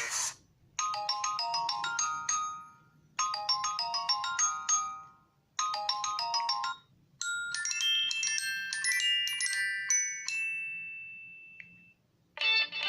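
LG K40S smartphone ringtone: a short melody of bright chime-like notes plays three times with short pauses, then a longer rising run of notes rings out and fades. Just before the end a different, busier tune starts.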